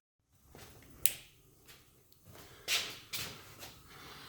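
Faint handling noises in a workshop: a sharp click about a second in, then a couple of short scuffing rustles near the end.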